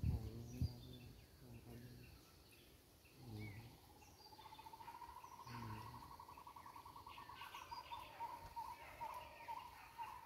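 Birds calling around the water: a faint, pulsing trill at one steady pitch starts about four seconds in and breaks into slower separate notes toward the end, with scattered higher chirps. Two knocks come right at the start.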